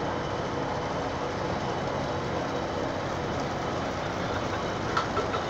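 Steady mechanical drone with an even rushing noise underneath, like an engine running. A few short clicks come about five seconds in.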